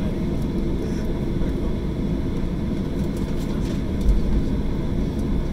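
Airliner cabin noise while taxiing: a steady low rumble of the jet engines and airframe, with a short low thump about four seconds in.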